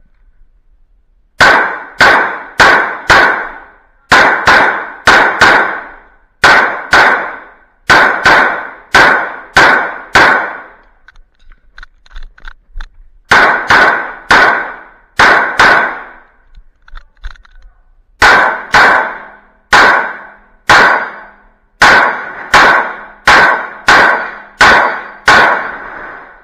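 CZ P-10 C pistol fired in rapid strings during a competition stage, dozens of shots about half a second apart in groups, with two short lulls between arrays. Each shot rings and echoes under the covered range.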